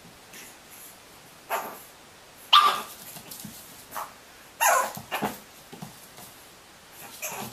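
Pug puppy giving a string of short, high barks about a second apart at its own reflection in a mirror. The loudest bark comes a few seconds in.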